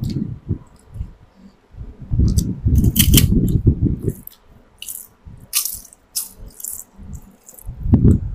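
Close-up eating sounds: crisp papad wafers crunching and crackling in a string of sharp bites, with low muffled chewing between them.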